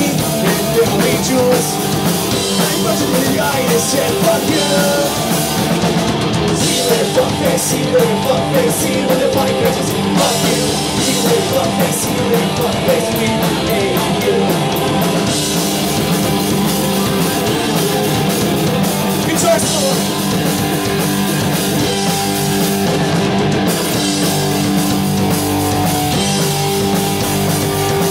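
Punk rock band playing live: electric guitars and drum kit driving a fast song, loud and continuous.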